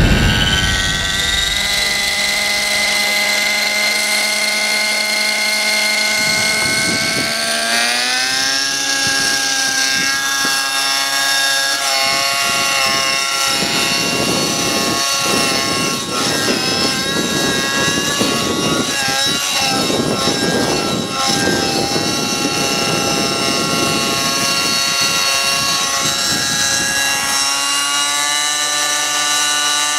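Align T-Rex 600N nitro RC helicopter running on its Align 50 Hyper glow engine, with a steady high whine. The whine steps up in pitch about seven seconds in. A rushing whoosh from the main rotor blades swells and fades several times through the middle.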